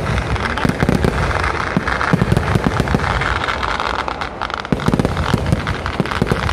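Fireworks going off in a rapid, continuous barrage of sharp bangs over constant crackling.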